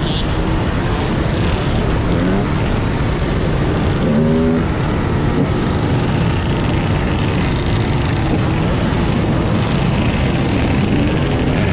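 Many dirt bike engines running together in a dense, steady drone, with a few short revs rising out of it.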